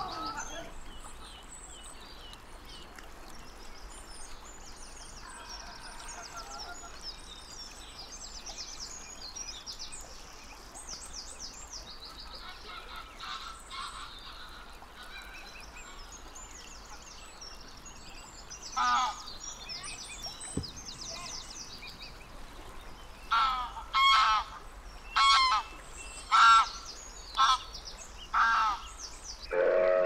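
Geese honking: a string of seven or eight loud honks, each about half a second and a second or so apart, starting about two-thirds of the way in. Small birds chirp faintly and high-pitched underneath, mostly before the honking starts.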